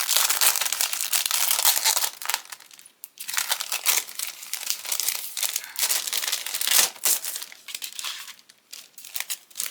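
Plastic packaging crinkling and rustling as a stencil is pulled out of its sleeve, densest in the first two seconds, then in shorter, patchier bursts.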